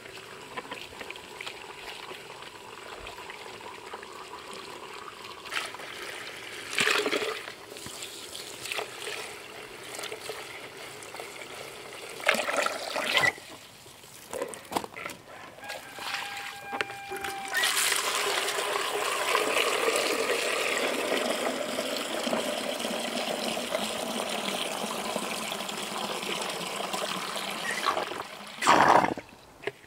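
Water from a garden hose running into a plastic bucket to fill a chick waterer. The flow grows louder about halfway through and then runs steadily, with a few short knocks in between.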